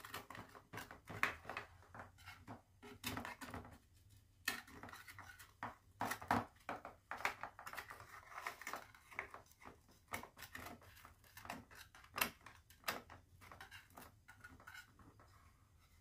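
A knife and spatula scraping and clicking against a metal baking pan in irregular strokes as baked crescent-roll bars are cut and loosened.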